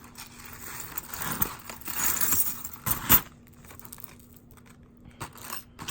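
Metal jewelry jingling and clinking as pieces are handled and sorted, busiest in the first three seconds with a sharp clink just after three seconds, then a few quieter clicks.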